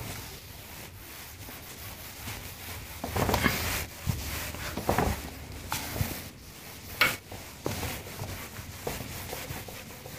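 Whiteboard being wiped clean with an eraser: a run of irregular rubbing strokes against the board, strongest about three to four seconds in.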